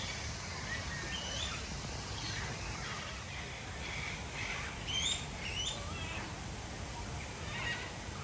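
Mixed aviary birds chirping and calling: many short, scattered chirps and rising calls of different pitches, busiest about five seconds in, over a steady low rumble.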